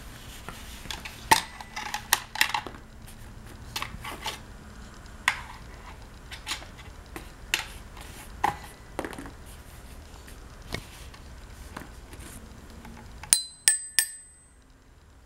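Toy xylophone bars struck irregularly by a baby's hand and a plastic mallet: scattered clanks and knocks with short rings. Near the end come three quick, clear ringing notes struck with the mallet.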